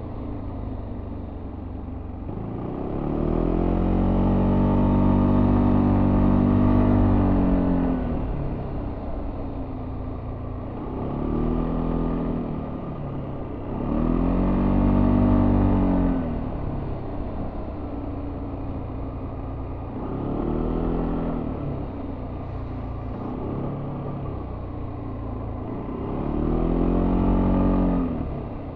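Yamaha Tricity 300's single-cylinder four-stroke engine through its stock exhaust, heard on board while riding: five swells in engine pitch and loudness as the throttle is opened out of curves, the first and longest a few seconds in, each easing back to a lower steady drone.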